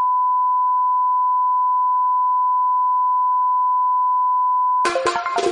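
Broadcast line-up test tone with colour bars: one steady, unbroken pitch, cut off near the end as music starts.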